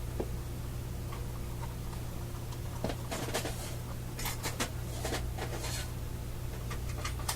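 Steady low mains hum from the Collins 75A-4 receiver's speaker, with scattered crackles and clicks that come thicker from about three seconds in, as a 0.05 capacitor is tried in the circuit under test.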